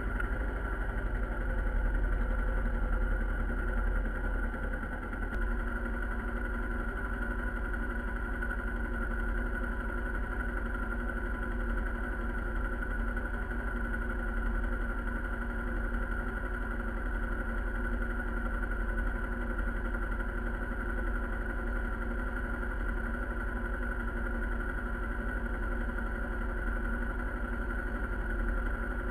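Motorcycle engine running steadily at an even speed, with a strong low rumble beneath it.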